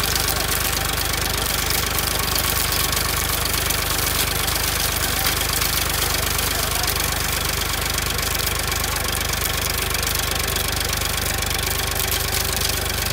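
Farmtrac Champion XP41 tractor's diesel engine running steadily with a knocking diesel clatter while it works under load tilling a field.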